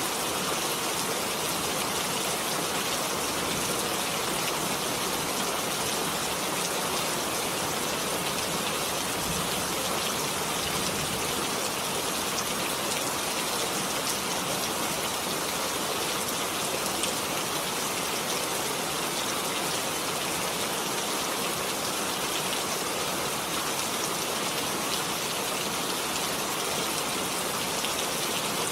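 Heavy rain falling steadily, a dense, even hiss of many drops.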